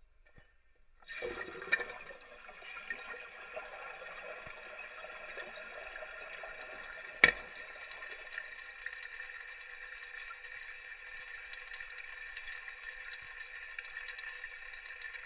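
Toilet flushed about a second in, with a rush of water, then a sharp knock about seven seconds in and a steady hiss with a few held tones as water keeps running into the tank.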